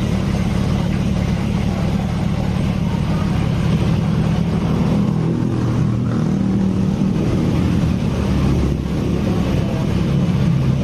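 A motor vehicle engine running steadily, a constant low drone with no change in speed.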